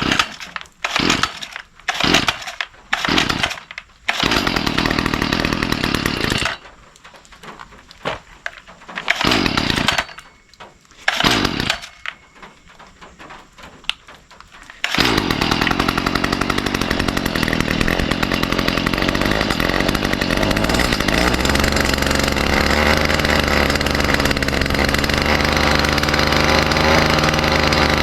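Stihl FS45C string trimmer's two-stroke engine being pull-started on a newly fitted replacement carburetor. Several short pulls, a brief catch that runs for about two seconds and dies, more pulls, then about halfway through it starts and keeps running steadily: the new carburetor has cured the no-start.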